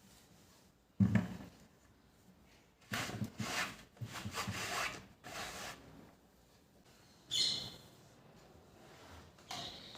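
Household handling sounds during cleaning: a thump about a second in, then a few seconds of rubbing and rustling, and a short high squeak later on.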